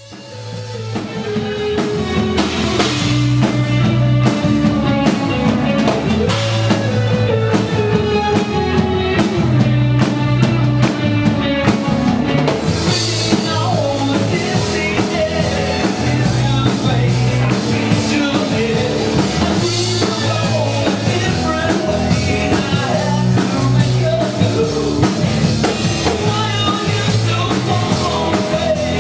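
A rock band playing with a drum kit, fading in over the first few seconds and then playing steadily.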